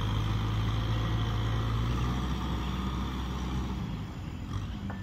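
Kubota tractor's diesel engine running steadily under load as its front blade pushes mud through a flooded rice paddy. Its low hum fades in the second half as the tractor moves away.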